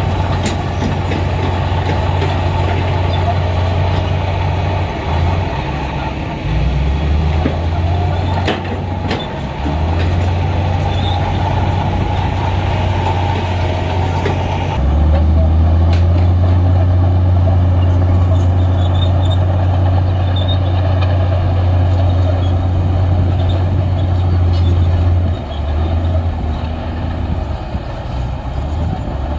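Heavy diesel earthmoving machinery running steadily with a deep engine drone: a crawler bulldozer and dump trucks working dirt. The sound changes abruptly about halfway through, and a few short clanks come about a third of the way in.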